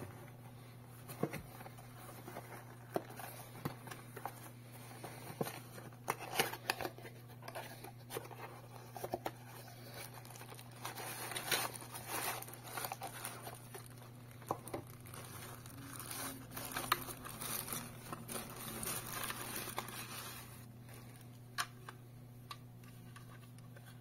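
Unboxing by hand: a small cardboard box's flaps being opened, with clicks, taps and scrapes of cardboard and plastic, and stretches of wrapping crinkling, densest about halfway through and again from about 16 to 20 seconds in. A steady low hum sits underneath.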